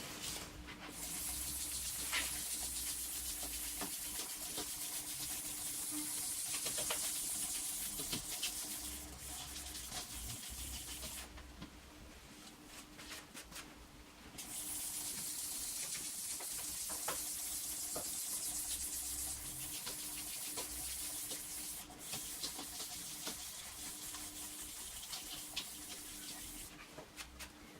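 Sanding of a plastic headlight lens: a steady hiss in two long stretches, broken by a pause of about three seconds near the middle.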